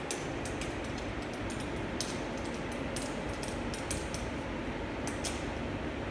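Irregular light metallic clicks and clinks as a swivel caster and its screws are handled and set onto a mounting plate, over a steady background hiss.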